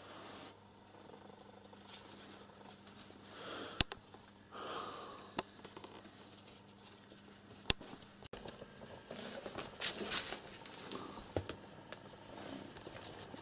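Quiet rustling and handling noises as a handheld camera is carried through a room, with two sharp clicks a few seconds apart.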